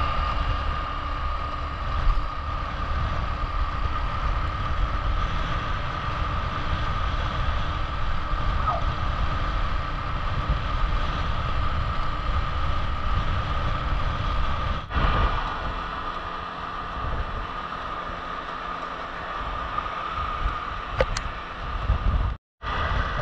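Wind rushing over the camera microphone with a motorcycle engine running at a steady cruise and tyre noise on the road. The sound changes abruptly about 15 seconds in and cuts out briefly near the end.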